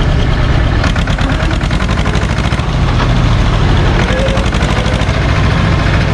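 SAME tractor's diesel engine running steadily as the tractor drives along, a dense, even low rumble heard from on board the tractor.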